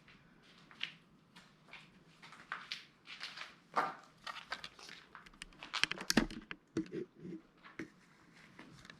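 Scattered scuffs, clicks and rustles of people moving about and handling things, busiest about six seconds in, with a few soft low knocks just after.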